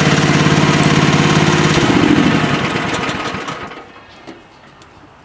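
A 1-ton mini excavator's gasoline engine running steadily, then switched off about two seconds in and dying away over the next two seconds.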